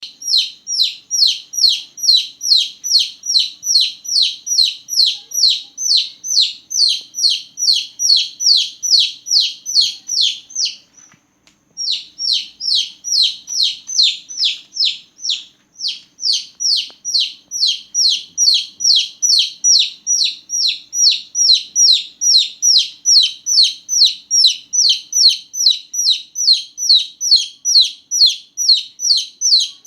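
Newborn chicken chicks peeping loudly: a steady, rhythmic run of short, high chirps, about three a second, each sliding down in pitch. There is a brief break about eleven seconds in.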